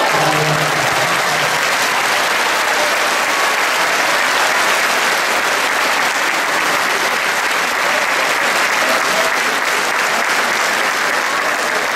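A large congregation applauding steadily, dense clapping from many hands that keeps up without a break.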